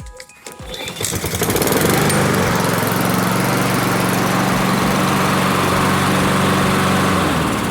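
Honda HRX217 walk-behind lawn mower engine starting about a second in, coming up to speed and then running steadily, on a test run just after a new air filter was fitted. The engine note dips briefly near the end, then steadies again.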